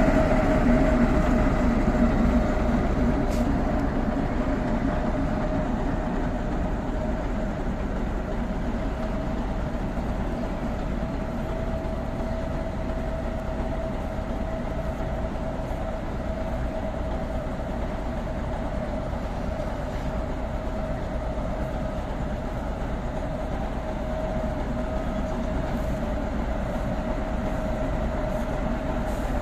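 V65 diesel locomotive's engine running as it shunts at low speed, a steady high whine held over its rumble. The sound eases down over the first few seconds, then runs on evenly.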